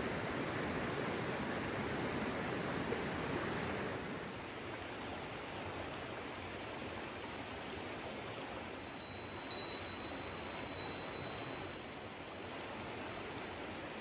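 Mountain stream rushing steadily, a little quieter after about four seconds. About nine and a half seconds in, a light metallic clink rings on briefly with high bell-like tones.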